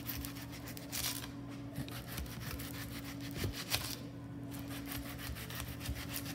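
Kitchen knife slicing through a red onion held in the hand: several short scraping cuts through the onion's layers, over a steady low hum.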